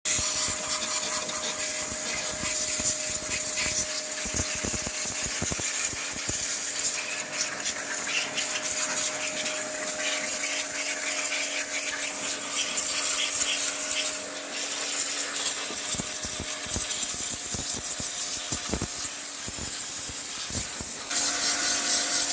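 A machine running steadily, with a constant hum and hiss and scattered knocks. The sound shifts a little just before the end.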